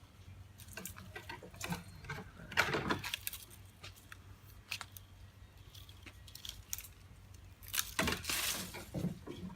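A freshly sharpened hand cutting tool cutting through a small stick, with handling clicks and two louder crunching stretches, about two and a half seconds in and about eight seconds in.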